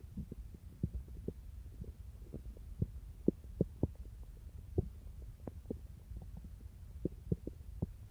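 Human stomach growling: irregular short low gurgles and pops over a faint low rumble.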